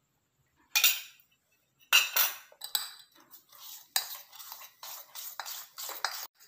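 Metal fork whisking a thin powdered-sugar and milk glaze in a stainless-steel bowl. The tines scrape and clink against the bowl in quick repeated strokes, starting about a second in.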